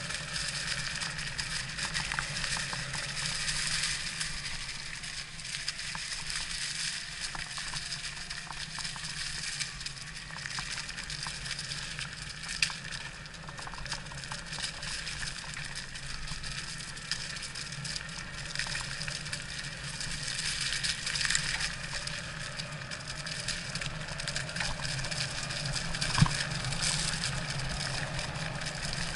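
Electric mountain bike being ridden over a rough trail: tyres crunching over dirt and gravel, with many small clicks and rattles and one sharper knock near the end.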